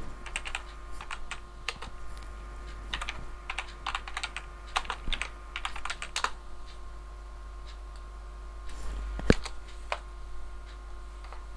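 Typing on a computer keyboard: a run of quick keystrokes over the first six seconds, then a single louder thump about nine seconds in. A faint steady hum runs underneath.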